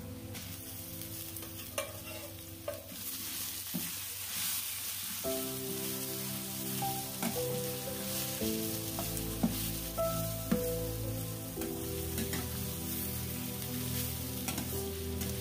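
Food sizzling as it fries in a pan and is stirred, with a few sharp clicks of a utensil against the pan.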